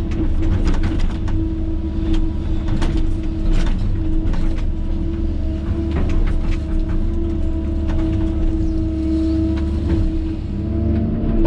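Kobelco excavator's diesel engine running under load while digging, with a steady whine over the rumble and scattered knocks and scrapes.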